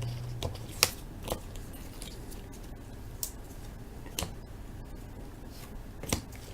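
Trading cards being handled at a table: about five sharp, short clicks and taps at irregular intervals, the loudest about a second in.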